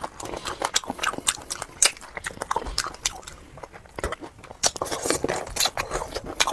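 Close-up chewing and biting of a pickled chicken foot, with irregular sharp crunches and clicks.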